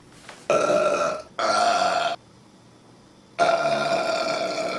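A man belching three times: two short burps in quick succession, then a longer, steady burp lasting over a second near the end.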